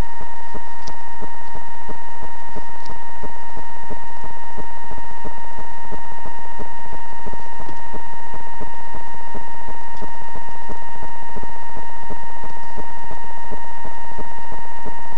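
A steady, loud, high-pitched electronic tone held at one pitch without a break, with faint rapid crackling beneath it.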